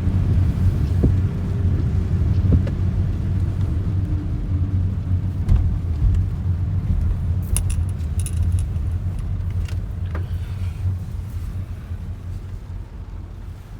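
Low, steady road rumble of a car heard from inside the cabin while driving, with a few light rattling clicks in the middle; it grows quieter toward the end.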